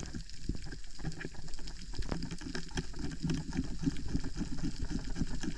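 Underwater sound on a reef: a steady, irregular crackle of many small clicks over a low water rumble.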